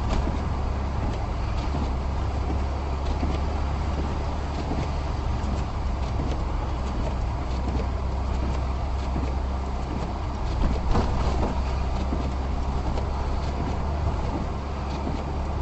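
Steady low rumble with an even hiss over it, like a motor vehicle running or driving.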